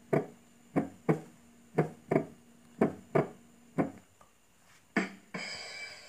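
A person making a rhythm of short, sharp percussive pops, about nine in all, mostly in pairs, with a longer sustained sound starting near the end.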